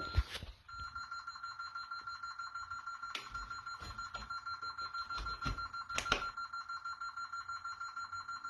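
Honeywell Vista 15P alarm system's sounder giving a high, rapidly pulsing beep, about six pulses a second, as it responds to tripped zones during a cross-zoning test. A couple of sharp knocks sound over it, about three and six seconds in.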